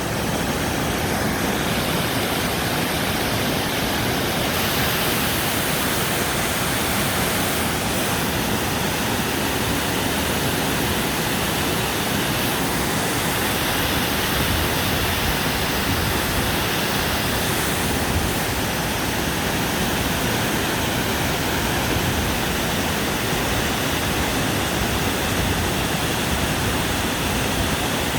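Waterfall: falling water rushing, a dense, even noise that holds level throughout.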